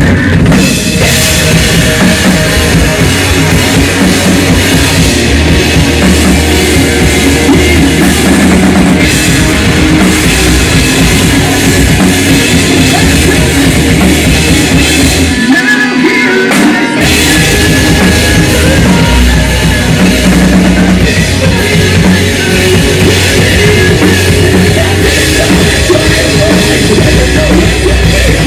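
Loud live rock band playing: electric guitars and a drum kit. About halfway through, the drums and low end drop out for about a second and a half, then the full band comes back in.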